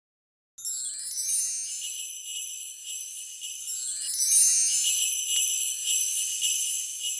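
High, jingling bell-like shimmer of a logo-intro sound effect. It comes in about half a second in, rises in pitch, then swells again with a second rising sweep and grows louder in the second half.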